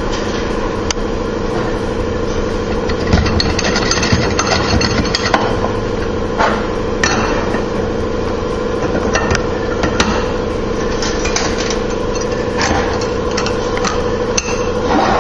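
Steel automatic-transmission clutch drums and hub knocking and clinking against each other as they are fitted together by hand, in scattered irregular knocks. A steady machine hum runs underneath.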